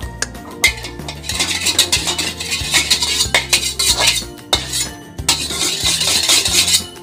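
Metal utensil stirring briskly against a bowl: rapid clinks and scraping in two spells with a short pause about five seconds in, over background music.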